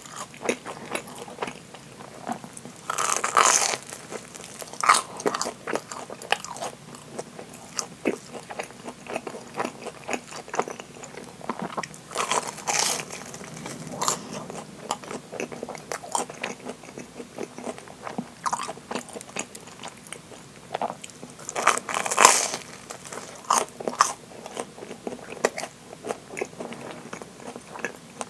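Bites into deep-fried curry bread, its crisp breadcrumb crust crunching: three loud bites about ten seconds apart, with crackly chewing in between.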